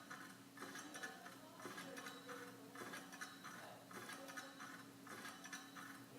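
Ceiling fan running: a faint steady motor hum with a rhythmic tick or whoosh a little under twice a second as the blades turn.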